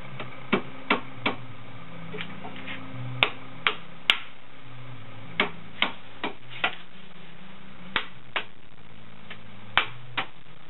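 Sharp wooden knocks and taps, about fourteen at irregular intervals, as a slatted wooden panel is lifted and handled, over a steady low hum.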